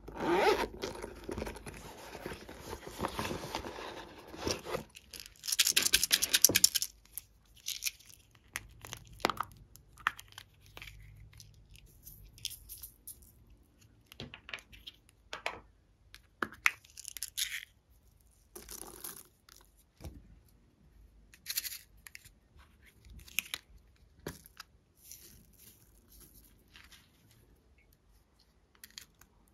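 Hands rubbing and squeezing a yellow silicone Hello Kitty toy for the first few seconds, then small plastic cups tipping beads, glitter and sprinkles onto slime in a glass dish: short separate rustles, scrapes and light patters.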